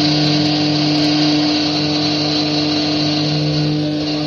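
CNC router spindle driving a small end mill through an aluminium plate: a steady motor hum and high whine over the hiss of the cut, holding even throughout.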